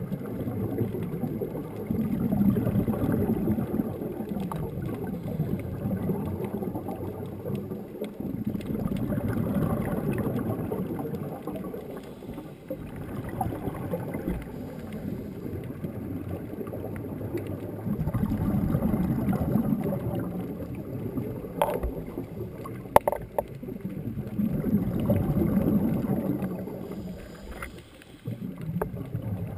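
Scuba diver's regulator exhaling, heard underwater through a camera housing: a low, muffled rush of bubbles that swells for two or three seconds with each breath, about every seven or eight seconds, with quieter stretches between. Two sharp clicks come near the end.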